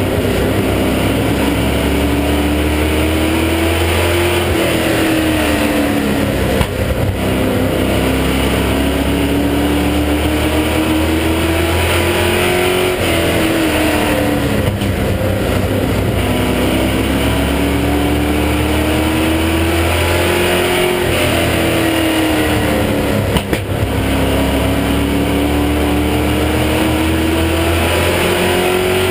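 Inside the cabin of a Chevy Monte Carlo sportsman stock car at race speed, its engine at full throttle. The pitch climbs steadily for several seconds, then drops as the driver lifts for a turn, about three times. There is steady road and chassis noise underneath and a couple of brief knocks.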